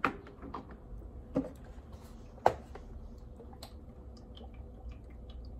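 Kitchen things being handled: a few sharp knocks and light clicks, the loudest knock about two and a half seconds in, with softer ticks after it, over a faint steady hum.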